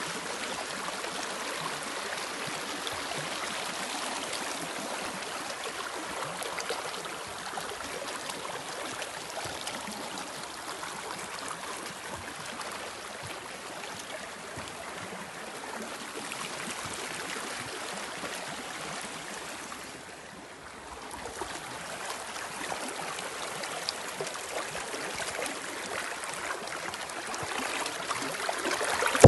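Small, fast stream rushing over rocks: a steady rush of water that eases briefly about two-thirds of the way through and grows a little louder near the end.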